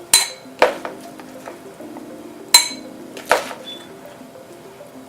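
Spoon and glass serving dishes clinking together four times, twice in the first second and twice more around the middle, over quiet background music.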